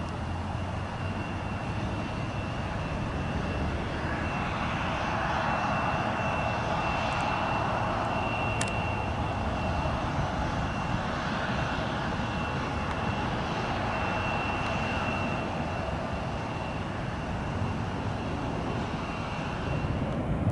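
Jet engines of a heavy airliner, a steady rushing roar with a thin high whine running through it. The roar swells from about four seconds in and eases a little near the end.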